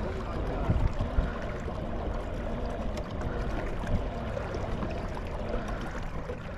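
Pedal-drive fishing kayak under way: water swishing and gurgling along the hull, over a steady low rumble.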